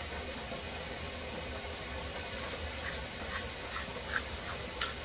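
Tall hand-twisted spice grinder being turned over the pan, giving a string of short crunching bursts from about three seconds in, over a steady hiss.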